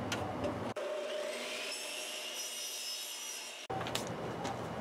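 Electric compound miter saw running through PVC pipe, a high motor whine that rises and then holds steady. It starts abruptly under a second in and breaks off suddenly about a second before the end.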